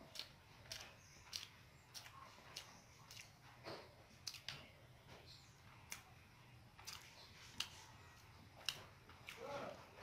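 Fingers mixing rice and mashed bhorta on a ceramic plate: faint, irregular soft clicks and squelches of hand and rice against the plate, with quiet gaps between.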